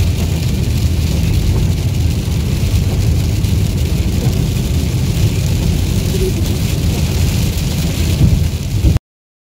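Heavy rain on a moving car's roof and windshield, heard from inside the car over a steady road rumble. It cuts off abruptly near the end.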